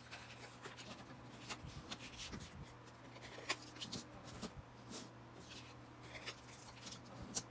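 Cardstock being handled and creased: scattered light paper rustles, taps and short scratchy rubs as a bone folder burnishes the folds.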